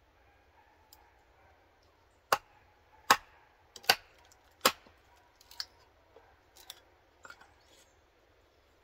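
Hatchet splitting kindling on a wooden chopping block: four sharp knocks less than a second apart as the blade, set in the wood, is struck down onto the block. A few lighter knocks and clatters of split pieces follow.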